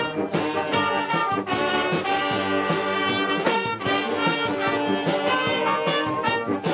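Brass band playing live: trumpets, saxophone and sousaphone together in a loud, bright horn arrangement over a steady beat.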